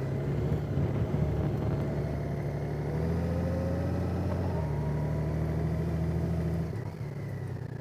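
Motorcycle engine running on the road, heard from the rider's position with a haze of wind noise. The engine gets louder with a rising note about three seconds in and eases off again about seven seconds in.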